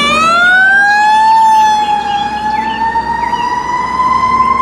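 Fire engine siren wailing, its pitch climbing over the first second and a half, dipping slightly, then climbing again.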